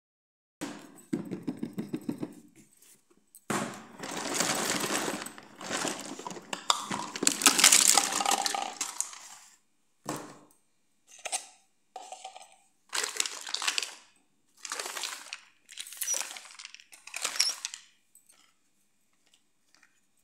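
Small plastic toys handled and clattering against a hard tile floor. A quick run of clicks comes first, then several seconds of dense clattering and rustling, then a series of short knocks and scrapes separated by pauses.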